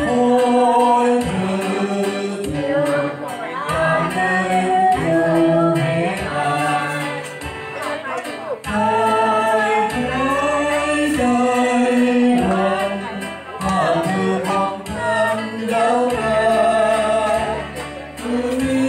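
A man singing a song into a microphone through PA speakers, with musical accompaniment, in long held notes phrase after phrase.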